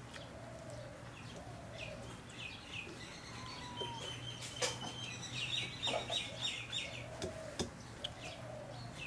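Birds calling and chirping, with a fast run of chirps in the middle, over a low steady hum. Two sharp clicks stand out, the louder about halfway through.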